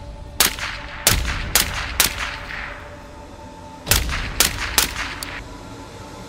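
Suppressed gunshots from a SIG Spear rifle in .300 Blackout fitted with an Energetic Armament Peak 30 silencer: four quick shots, then after a pause of about two seconds three more.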